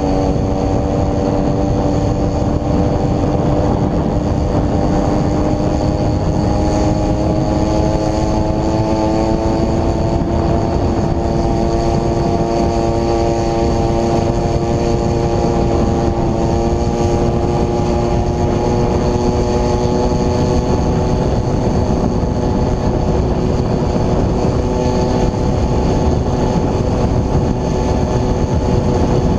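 Homelite two-stroke chainsaw engine driving a motorized bicycle, running steadily at high revs with its pitch climbing slowly over the whole stretch, over a steady rush of noise.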